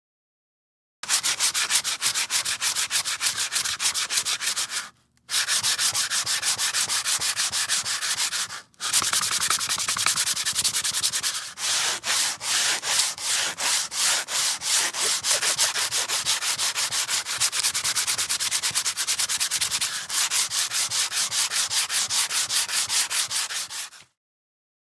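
Coarse 80 grit sandpaper rubbed rapidly back and forth, a rough scratchy hiss in quick even strokes, with two short pauses about five and nine seconds in.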